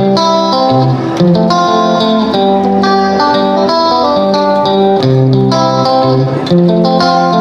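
Instrumental background music led by plucked guitar notes.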